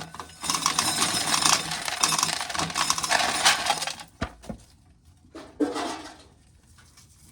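Dried corn kernels being shelled off the cob and rattling into a pail: a dense crackling patter for about four seconds, then only a few scattered clicks and a knock.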